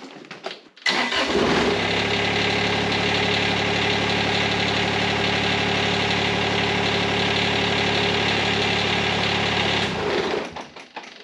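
Kubota BX1870 subcompact tractor's three-cylinder diesel engine starting about a second in and idling steadily, then shutting down near the end when the operator stands up off the seat with the PTO engaged: the operator presence control cutting the engine as it should.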